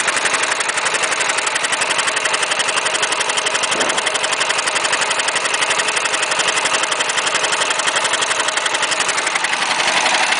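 418cc single-cylinder air-cooled Chinese diesel engine, brand new, running steadily with a rapid, even chugging beat.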